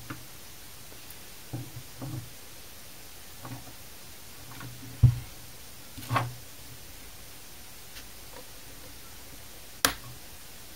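Quiet handling sounds: a few soft knocks and rustles as fingers push the bundled wires aside inside an open computer power supply, with two sharper clicks, about five seconds in and near the end.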